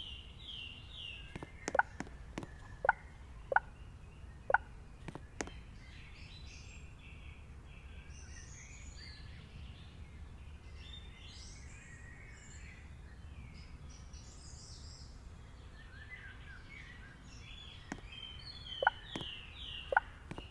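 Birds chirping over a steady low outdoor background, with a run of quick repeated chirps in the first second. Sharp clicks come in two clusters, a handful about two to five seconds in and a few more near the end.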